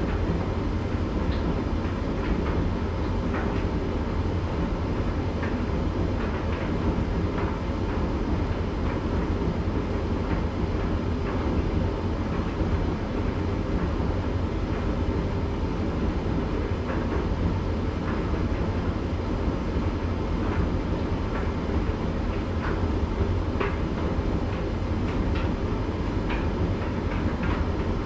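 Candy GrandO tumble dryer running its cool-down phase, the drum turning steadily with a low hum and rumble and light scattered clicks as the load of towels tumbles.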